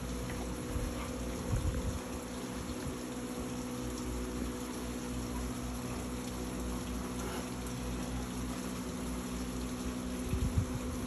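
A steady low machine hum throughout, with a couple of brief soft thumps about a second and a half in and again near the end as the dogs scuffle and land.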